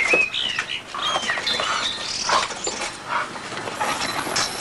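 Dog whining and yipping: a string of short, high-pitched cries that rise and fall in pitch.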